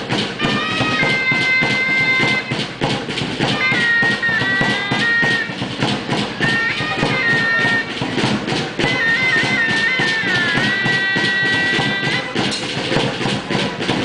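Chirimía (a double-reed shawm) playing a high, reedy melody in four short phrases, over steady, continuous drumming.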